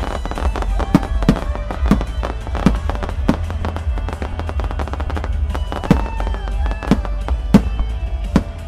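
Starmine fireworks going off: a rapid run of launch thumps and bursting shells, about ten loud bangs with crackling between them, over a constant low rumble. Music plays along with the display.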